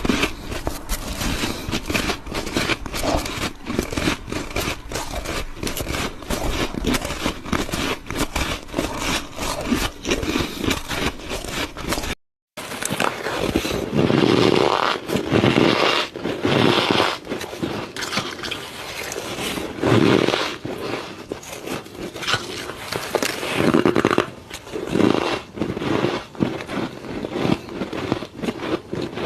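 Close-miked bites and crunching of squeaky ice, many sharp crackling clicks packed together. About twelve seconds in the sound cuts out briefly, then comes back as separate louder crunching bites spaced a second or more apart.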